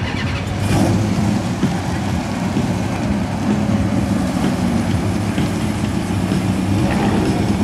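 Early-1950s Chevrolet two-door sedan's engine and exhaust running with a steady low note as the car pulls slowly away at low speed.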